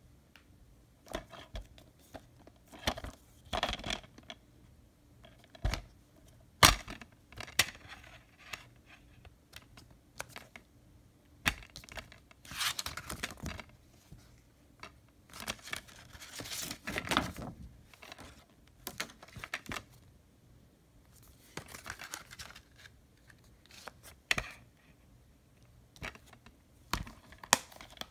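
A DVD case and its cardboard slipcover being handled: bursts of rustling and sliding, with sharp clicks of the plastic case, the loudest about six and a half seconds in.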